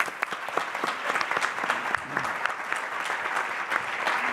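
Large seated audience applauding, many hands clapping at once in a steady, even patter after a talk has ended.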